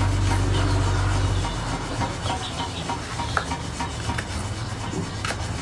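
A knife cutting a chile against a plastic plate: a few light, irregular taps and clicks.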